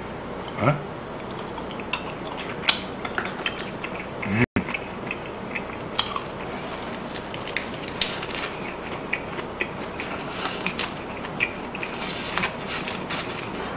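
Chopsticks clicking and tapping against plastic takeout containers as food is picked up and a lettuce wrap is put together, many small irregular clicks with a few sharper ones. Near the end the wrap goes into the mouth and close-up chewing is heard.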